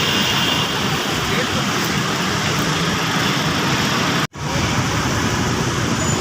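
Steady, even noise of heavy rain and road traffic. It drops out briefly about four seconds in.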